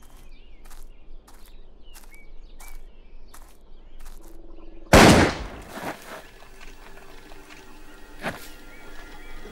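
Slow footsteps on dry ground with small bird chirps, then about five seconds in a single loud bang that rings off, followed by a few quieter steps.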